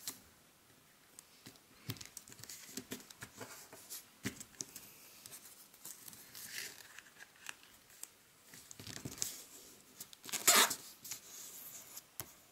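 Origami paper rustling and crinkling quietly as fingers fold it and press along a crease, with scattered small crackles and a louder rustle about ten seconds in.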